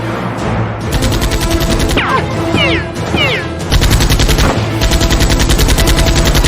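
Rapid automatic gunfire sound effect, about ten shots a second, starting about a second in and growing louder near four seconds, over background music. A few short falling whistle-like sounds come around two to three seconds in.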